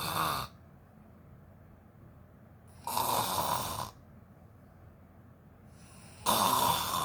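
A woman snoring in her sleep: three loud snores, each about a second long, coming roughly every three seconds, the first right at the start.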